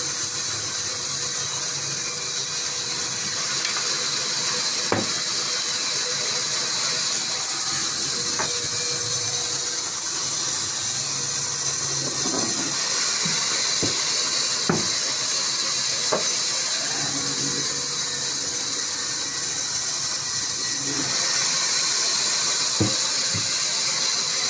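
Sawmill band saw cutting through a mahogany log: a steady, high hiss, with occasional sharp knocks.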